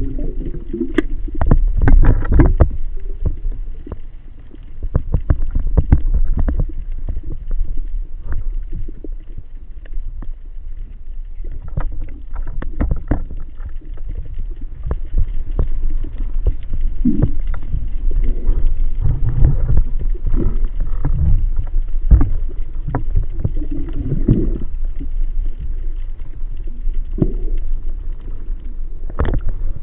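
Muffled water sloshing and bubbling around the camera, with many sharp clicks and knocks.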